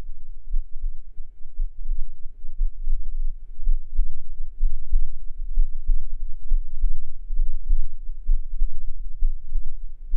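A person's heartbeat picked up by a binaural microphone: deep, steady beats, a little more than one a second.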